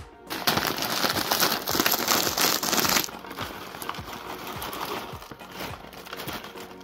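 Plastic bag of mixed vegetables crinkling loudly as it is handled for about three seconds, then quieter rustling with scattered light clicks as the vegetables are emptied into the slow cooker.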